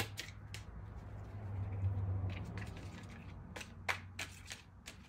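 Tarot cards being handled on a table: scattered sharp clicks and taps, bunched in two groups, with a low hum that swells and fades about two seconds in.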